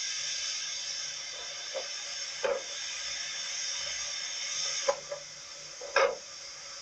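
Steady hiss with a few sharp metallic clunks, one or two seconds apart, as a rack-railway point shifts its rack and running rails in a single movement. The hiss eases slightly after the second clunk.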